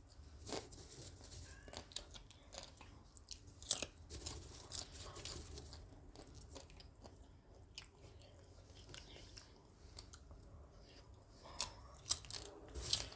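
Someone chewing cheese-flavoured microwave popcorn, with irregular crisp crunches, several at a time near the start and again near the end.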